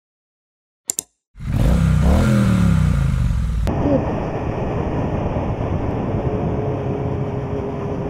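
A brief click, then a motorcycle engine revving up and falling back. After an abrupt cut, steady motorcycle running noise.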